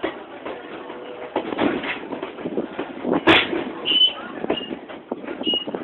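Passenger train coach rolling slowly over jointed track and switches: a running clatter of wheel knocks and rattles, with one sharp loud knock about three seconds in and a few brief high squeaks.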